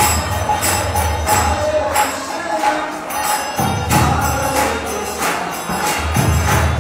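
Kirtan music: voices singing together over hand cymbals struck in a steady rhythm. A low bass part drops out for about a second midway through.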